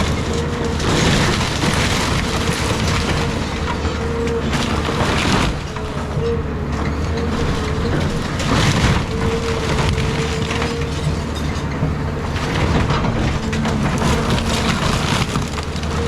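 Caterpillar 323 excavator running under load, with a steady hydraulic whine, while timber framing splinters and debris crashes down again and again.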